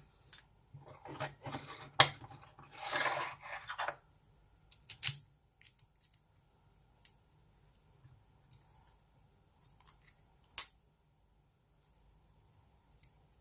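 A thin metal shim worked against a DOM ix10 dimple lock cylinder: scraping and rubbing for the first few seconds, then scattered sharp metallic clicks, the loudest about two, five and ten and a half seconds in.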